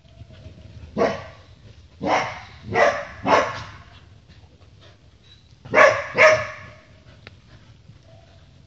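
Dogs barking in play: a single bark about a second in, three quick barks between about two and three and a half seconds, then two barks close together near six seconds.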